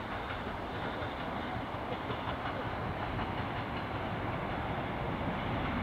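Vintage Tait electric suburban train approaching along the track, its wheels running on the rails, growing slightly louder as it comes closer.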